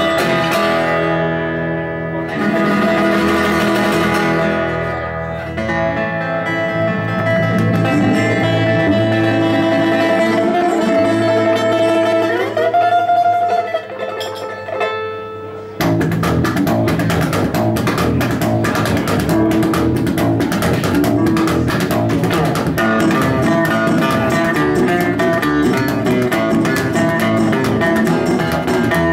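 Acoustic string band of resonator guitar, acoustic guitar and upright double bass playing a bluegrass-style song. It opens with slow, ringing chords and a note sliding upward, then about halfway through the band breaks into a brisk, steady strummed rhythm.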